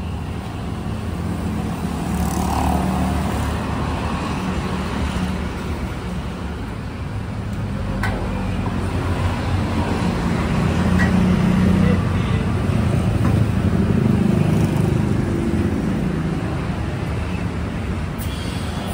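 Road traffic passing, a steady low rumble that swells and fades twice, with a few faint light clicks.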